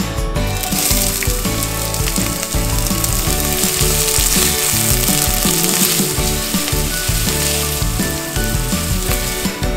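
Chopped onion sizzling in hot cooking oil in an enamelled cast-iron pot as it is stirred. The sizzle starts about half a second in, as the onion hits the oil, over background music.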